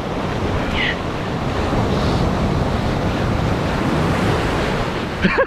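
Ocean surf breaking and washing on a beach, a steady loud rush, with wind buffeting the microphone. A short pitched sound comes near the end.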